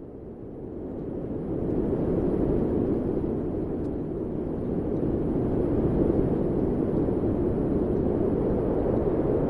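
Strong tornado winds blowing hard against the microphone: a steady, deep rushing roar that swells over the first two seconds and then holds.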